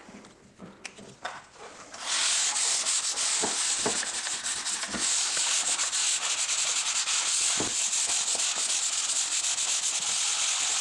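Hand sanding of dry drywall joint compound with 120-grit paper on a foam sanding block, feathering the edges of a patch. Steady scraping strokes start about two seconds in and keep going.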